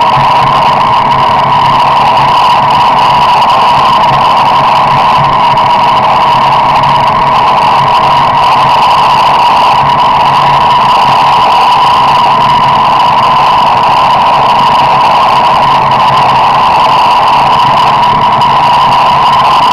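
Steady engine and road noise heard from inside a moving car, loud and unchanging, with a constant tone running through it.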